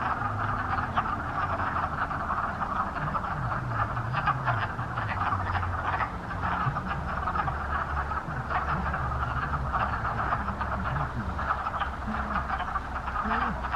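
Breeding chorus of many male wood frogs, their short duck-like clucking calls overlapping into a continuous chatter, over a faint low rumble.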